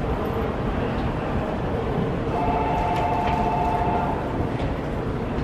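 Meitetsu 1200 series 'Panorama Super' express train approaching the station with a steady low rumble. Near the middle, a two-note tone is held for about two seconds.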